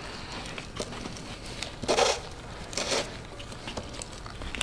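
Gloved hands working at a diesel fuel filter bowl: scattered small clicks and rustles, with two short scraping rustles about two and three seconds in.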